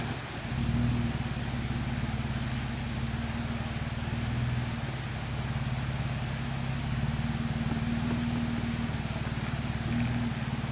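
Off-road vehicle engine running steadily at low revs with a low, even hum while crawling over rocks.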